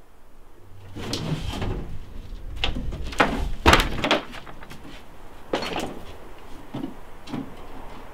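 A large house-shaped prop being lifted and carried: a run of knocks, scrapes and rustles, loudest about three to four seconds in, then a few single knocks as it moves away.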